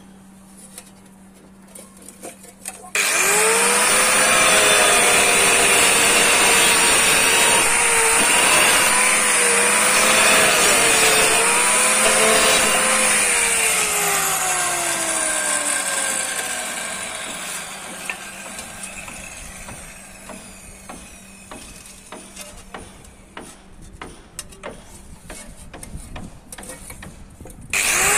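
Hand-held angle grinder cutting a ceramic wall tile. It starts suddenly about three seconds in and runs loud with a wavering whine under load for about ten seconds, then is switched off and winds down with a falling whine. Scattered clicks and taps follow, and the grinder starts up again at the very end.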